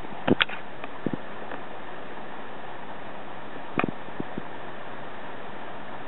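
Steady whirring hiss of a running computer's fans, with a few short clicks and knocks: two sharp ones just after the start, a pair about a second in, and a small cluster near four seconds.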